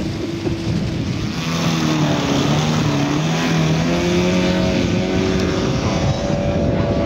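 Engine of a large radio-controlled Messerschmitt Bf 109 model running at high revs on its takeoff run and climb-out, a steady drone that rises slightly in pitch as it lifts off. Heavy wind noise rumbles on the microphone throughout.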